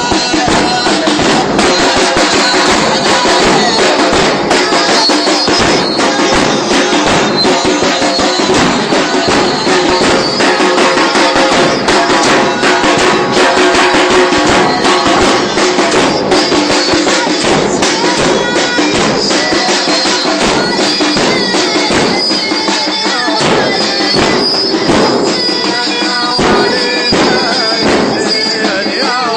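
Muharram mourning-procession chant: a male reciter chanting a lament over a steady rhythm of hand-beating.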